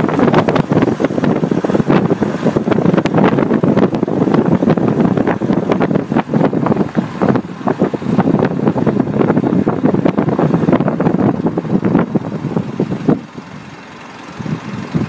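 Wind buffeting a side-mounted microphone on a moving Mitsubishi Delica D5, over the rush of its tyres rolling on rough asphalt. The noise drops sharply for about a second and a half near the end, then comes back.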